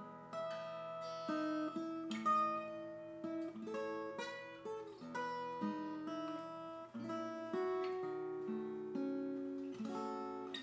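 Crafter Grand Mino acoustic guitar being played: a melody picked over chords, the notes left to ring, with some strummed chords.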